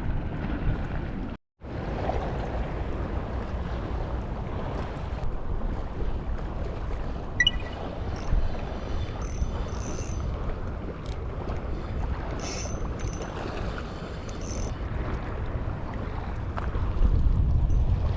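Steady wind noise on the microphone with waves washing against the breakwater. A few faint small clicks and rattles come through in the middle, and the sound cuts out completely for a moment about a second and a half in.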